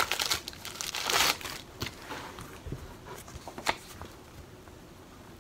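Paper instruction manual rustling as it is handled and leafed through. The rustling is loudest in the first second and a half, then comes quieter and more scattered, with one sharp tick a little past the middle.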